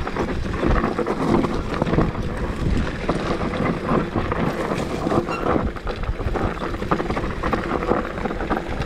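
Mountain bike rolling fast down a rocky dirt trail: tyres on loose gravel and stones, with the bike rattling and knocking over the bumps and wind buffeting the microphone.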